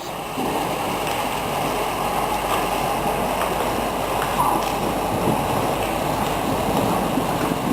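Heavy thunderstorm rain pouring steadily, an even hiss with no thunder clap.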